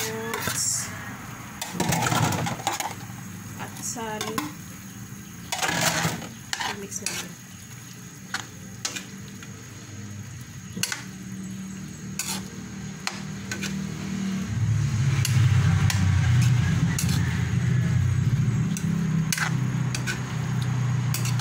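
Spatula stirring and scraping meat and vegetables in a wok, with repeated clanks against the pan and a light sizzle. A low steady hum comes up about two-thirds of the way through and is the loudest sound.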